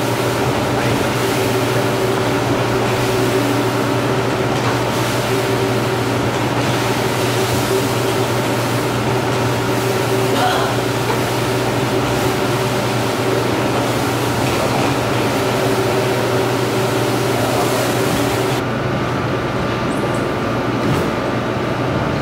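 Electric rotary floor scrubber running steadily as its brush scrubs a soapy rug: a constant motor hum with a brushing hiss. Near the end the higher hiss drops away suddenly while the hum goes on.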